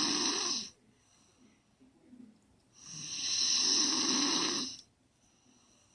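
Snoring in slow rhythm. The tail of one snore fades out just under a second in, and a full snore of about two seconds comes about three seconds in. Each snore is a long noisy breath with a low rattle, with quiet breathing between.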